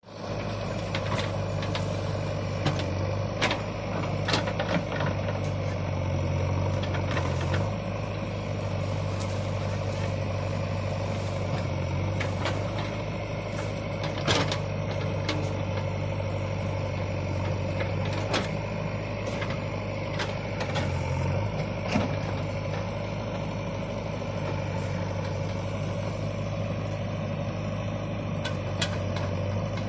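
JCB backhoe loader's diesel engine running steadily, briefly rising in pitch twice, with scattered sharp metallic knocks and clanks from the working machine.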